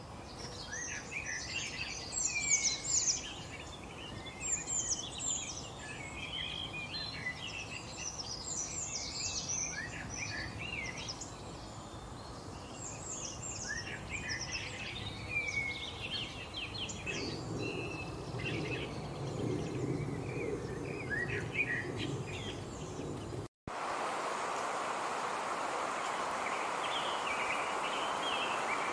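Songbirds chirping and whistling in many short, varied calls over a steady outdoor hiss. About three quarters of the way in, the sound cuts out for an instant and gives way to a steadier hiss with fainter chirps.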